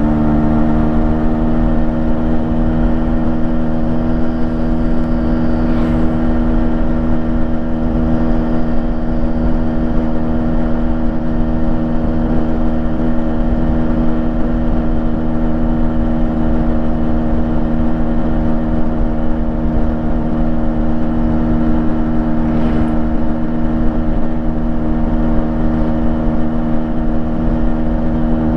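Yamaha RX135's 132cc single-cylinder two-stroke engine, freshly rebuilt, idling steadily through its stock exhaust.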